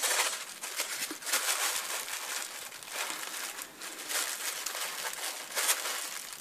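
Honeycomb-paper ball (Magnolia Doo-Bee-Pops paper) rustling and crinkling as it is turned in the hands and a thin cord is laid around it. The papery rustle is continuous, swelling and fading.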